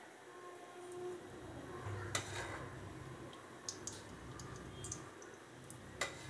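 Faint scattered clicks and light metallic taps as cooking oil is poured and measured with a steel spoon into an aluminium kadai. There is a small cluster of clicks about two seconds in and a sharper tap near the end.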